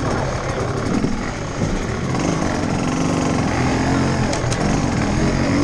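GasGas enduro motorcycle's single-cylinder engine heard from on the bike, revving up and down at low speed as it climbs over a log obstacle.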